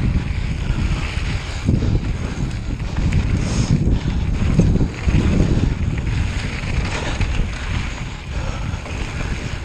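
Wind buffeting the microphone, a loud rough rumble that flutters unevenly throughout.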